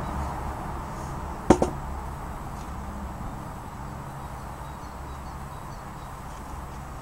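A log knocking down onto a wooden sawhorse: one sharp wooden knock about one and a half seconds in, with a smaller one right after. A low steady hum fades slowly underneath.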